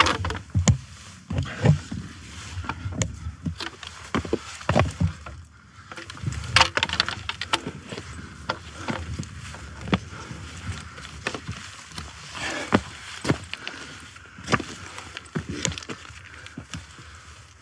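Irregular clicks and scrapes of boots and trekking-pole tips on rock as a hiker climbs a steep, rocky slope, over low rumbles and a faint hiss.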